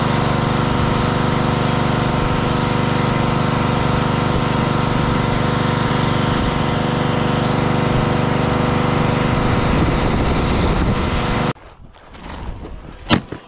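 A Honda GCV190 single-cylinder engine on a gas pressure washer running steadily under load, with the hiss of the high-pressure spray. It cuts off abruptly near the end, and a single sharp crack follows.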